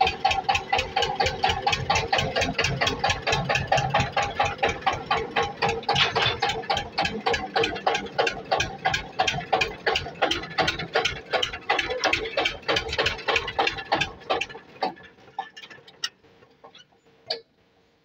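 Small farm tractor's engine running with an even, rapid beat of firing pulses as it drives across tilled soil. The engine sound stops about 14 seconds in, leaving near quiet with a few faint clicks.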